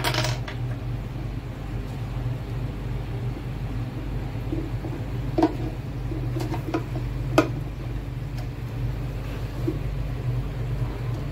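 A few light clicks and knocks of small plastic aquarium filter parts being handled and fitted together, the sharpest about five and a half and seven and a half seconds in, over a steady low hum.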